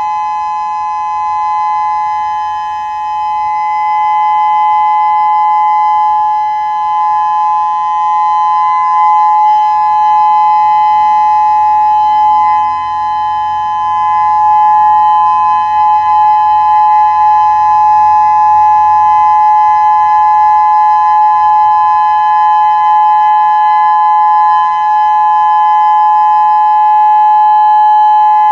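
Federal Signal Modulator electronic outdoor warning siren sounding its steady Alert tone: a chord of several pitches held level with no rise or fall, swelling and dipping slightly in loudness.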